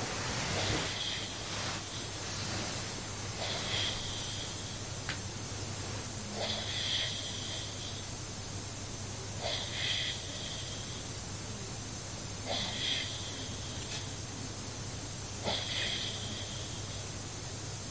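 A drunk man snoring in his sleep while wearing a nasal strip, a hissing breath about every three seconds, six in all.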